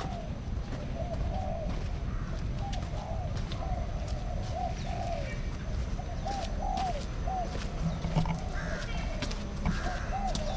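Aviary birds calling: short, low, arched notes repeating about one to two times a second, with scattered sharp high chirps over a steady low rumble.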